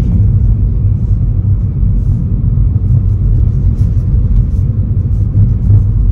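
A car driving: a loud, low rumble of road and engine noise.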